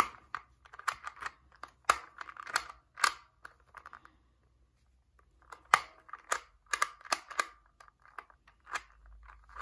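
Sengso magnetic Rubik's Clock clicking as its dials are turned through their magnetic hour stops and its pins pushed, in irregular bursts of sharp clicks with a short pause about halfway through.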